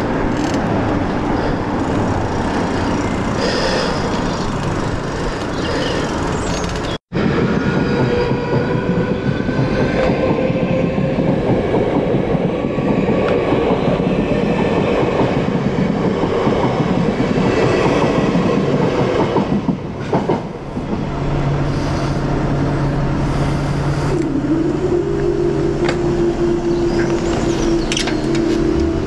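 A train running past, a loud steady rush of noise that cuts out for an instant about seven seconds in; near the end a hum rises and then holds steady.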